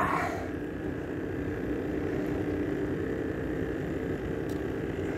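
A boat engine running steadily, an even drone that holds the same pitch throughout.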